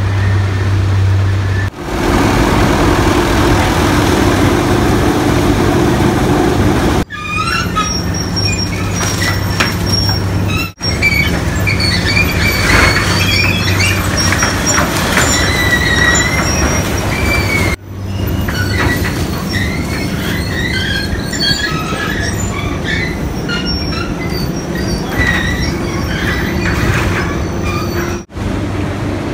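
Sugar mill cane carrier and feed-table machinery running: a steady machine hum with scattered high metallic squeals from the chain-driven conveyor. The sound changes abruptly several times.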